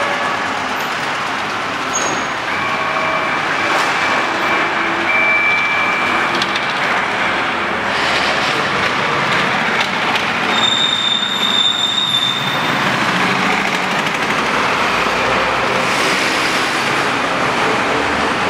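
Loud, steady din of woodworking machinery running in a workshop, with a brief high whine about ten to twelve seconds in.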